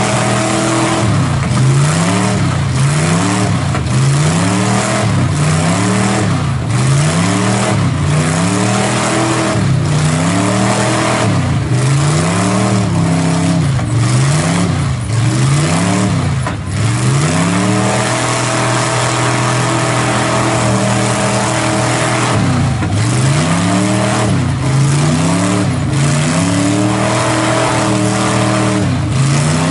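Lifted mud truck's engine revving hard over and over, its pitch rising and falling about once a second as the tyres spin and throw mud: the truck is bogged down in a mud pit. A little past the middle the revs hold steady for a few seconds, then the up-and-down revving resumes.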